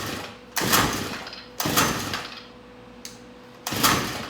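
Recoil starter of a Stihl FS90 4-Mix trimmer pulled about four times, each pull a short rasping whirr of rope and cranking engine that dies away. The engine never fires: the spark plug is not connected.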